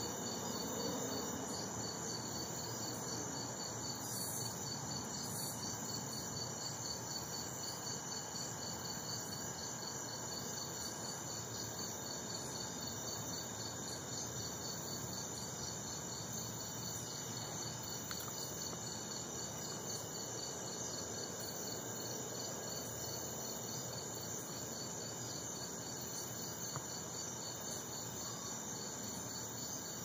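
Night insects chirping steadily: a continuous high trill with an evenly pulsed chirp over it, on a low background hiss.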